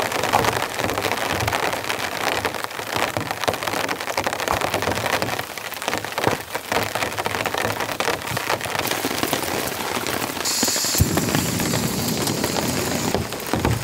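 Heavy, persistent rain falling steadily, a dense patter of countless drops.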